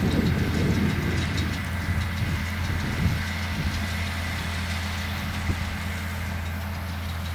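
International Harvester 1066 tractor engine running steadily, a constant low drone, with the Hesston 560 round baler working behind it and light clattering over the top.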